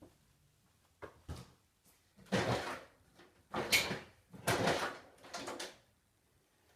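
A drawer pulled open and rummaged through: six short scraping and rattling bursts over about five seconds.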